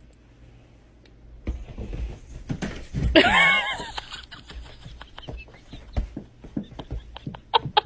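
A cat gives one drawn-out meow that bends in pitch about three seconds in, among scattered light taps and thumps.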